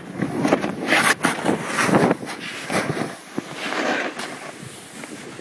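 Snowboard scraping and sliding over snow in uneven surges, louder in the first two seconds and easing off toward the end.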